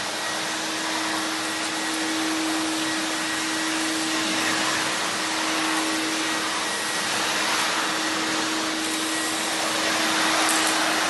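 Nilfisk CFM S2B industrial wet-and-dry vacuum running steadily, sucking air through its floor nozzle: an even rushing hiss over a constant low hum.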